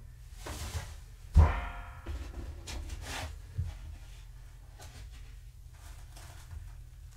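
Household clatter: a loud knock about a second and a half in, ringing briefly before it stops abruptly, with short rustling scrapes and a smaller knock around it.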